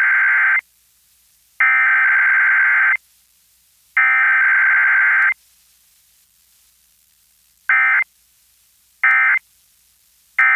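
Emergency Alert System SAME digital header: three long bursts of screeching data tones about a second apart, then after a pause three short end-of-message bursts, with no attention tone or spoken message between them.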